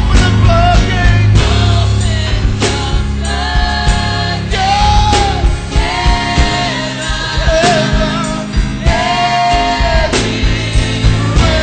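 Gospel praise team singing with band accompaniment: long held vocal notes over bass and drums.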